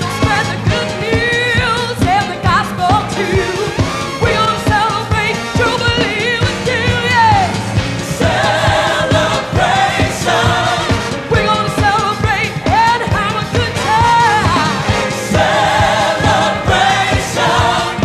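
Upbeat gospel song with a solo singer and a church choir over a band with a steady beat. The fuller choir parts come in about halfway through and again near the end.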